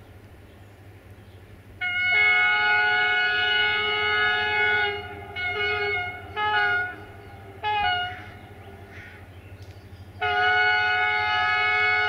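Horn of a CFR class 65 diesel-electric locomotive (65-1300-6, 'Jimmy') sounding from a distance as it approaches: a long blast about two seconds in, then three short blasts, then another long blast near the end.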